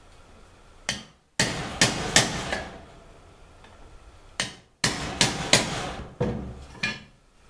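Back of a camp axe hammering a small aluminum cooking pot, cold-forging the metal to seal a pinhole: about ten sharp blows in two bursts with a short pause between them.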